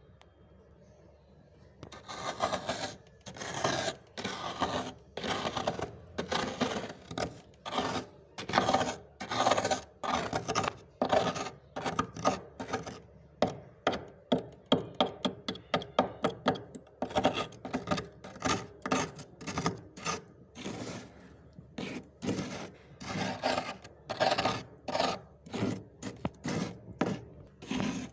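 Freezer frost being chewed close to the microphone: a run of sharp, gritty crunches, a little under two a second, starting about two seconds in.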